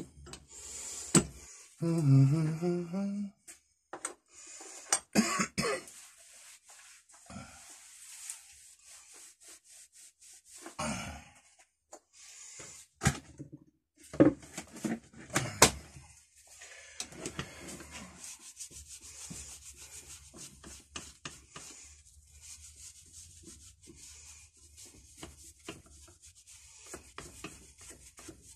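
Metal-on-metal handling of a reassembled cast-iron Record No. 1 bench vise: scattered knocks and clinks, then a long stretch of faint scraping rub as the sliding jaw and screw are worked by hand.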